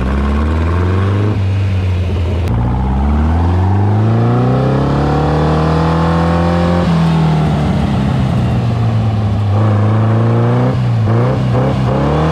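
Racing dune buggy engine revving under load while its stuck clutch is being worked free. The pitch climbs steadily for about seven seconds, drops suddenly, then wavers, with quick dips and blips near the end.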